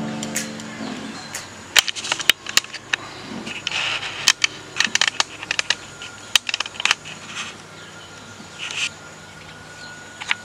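Irregular sharp clicks and knocks of a circuit board, tools and a multimeter being handled on a workbench.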